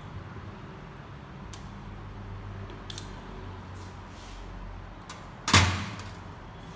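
Metal parts of a common-rail high-pressure fuel pump being handled: a light metallic tap about three seconds in, then one louder clank with a brief ring about five and a half seconds in, over a steady low hum.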